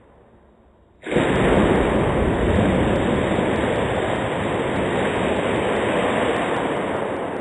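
A splash into a swimming pool, heard as a loud, steady rush of water that starts abruptly about a second in and is drawn out over several seconds, as in slow-motion playback of a jump into the water.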